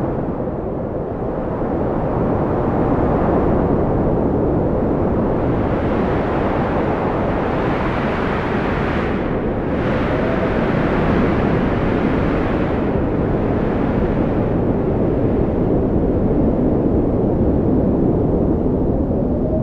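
Strong wind blowing in a continuous deep rush that swells and brightens through the middle, with faint whistling tones drifting in and out.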